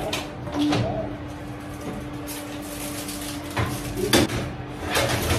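Metal baking tray lined with foil being slid onto an oven rack: a few knocks and scraping clatters, the loudest about four seconds in, over a steady hum.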